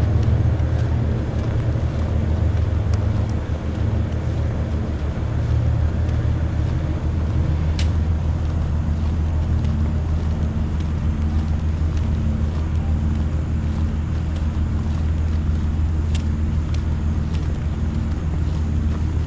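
A steady, low engine-like drone, with a few faint clicks over it.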